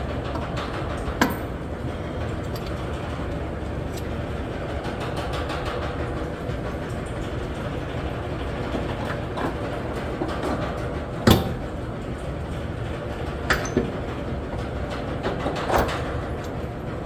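A few sharp metal knocks and clinks as parts and tools are fitted at the front strut and hub in the wheel well, the loudest a little past the middle. Under them is a steady low rumble of shop background noise.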